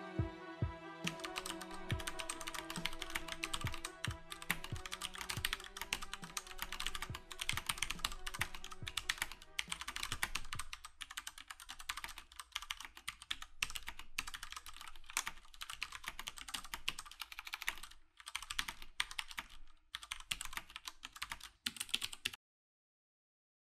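Keyboard typing sound effect: a fast, dense run of key clicks that stops abruptly near the end. Underneath, a music track fades out about ten seconds in.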